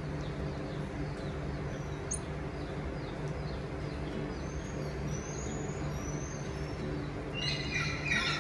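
A steady low mechanical hum, with short high chirping animal calls a little past the middle and a louder burst of chirping near the end.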